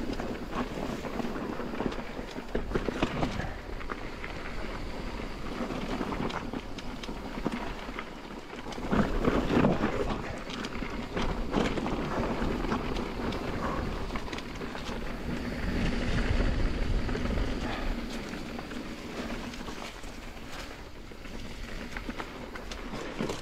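Mountain bike riding down a dirt trail: tyres rolling over dirt and rocks, with frequent knocks and clatters from the bike and wind on the microphone.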